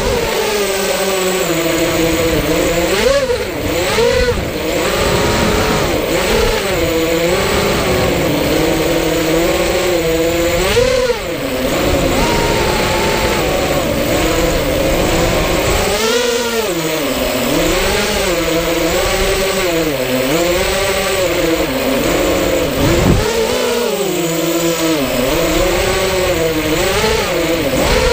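FPV racing quadcopter's electric motors and propellers whining, heard from the camera on the drone itself. The pitch rises and falls again and again with the throttle, in quick, regular swoops in the second half.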